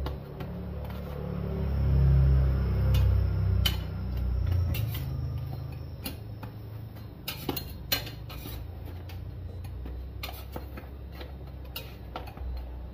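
Metal spatula clicking, tapping and scraping against a hot pan as pieces of toast are shuffled around and flipped, in many short irregular strikes. A low rumble swells in the first few seconds and then eases.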